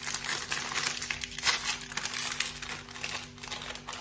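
The plastic wrapper of an Oreo biscuit packet crinkling and crackling in an irregular run as it is handled. A faint steady hum sits underneath.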